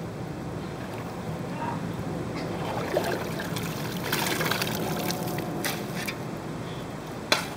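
Steel shovel digging in a hole of wet mud and muddy water: sloshing and wet scraping as the blade scoops out sludge, with a sharp knock near the end.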